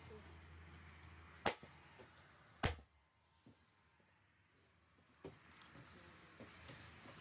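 Cordless nail gun firing twice, about a second apart, each a sharp shot driving a nail through the hardboard sheet into the timber frame. A fainter knock follows a few seconds later.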